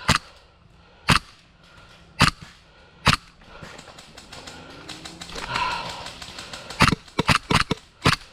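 Airsoft guns firing single shots: four sharp snaps about a second apart, then after a pause a quicker run of about five shots near the end.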